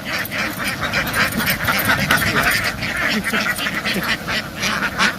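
A large flock of domestic ducks quacking all together: a dense, continuous din of overlapping calls.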